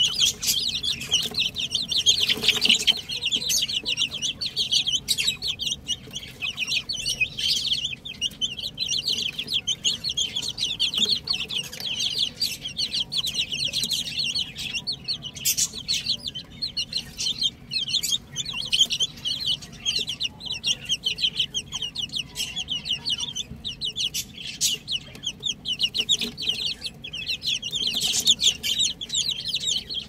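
A group of young chicks peeping, many short high-pitched cheeps overlapping without a break, a little louder about two and a half seconds in and again near the end.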